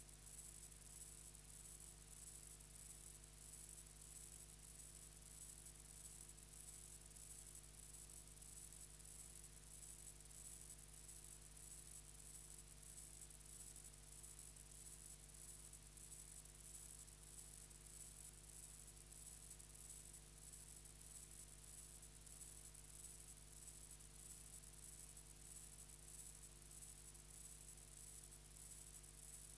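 Near silence: a faint, steady hiss and low electrical hum with no recorded sound.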